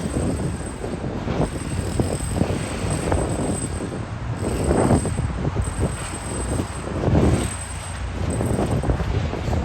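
Street traffic noise: a steady rumble of road vehicles, with two passing vehicles swelling louder about five and seven seconds in.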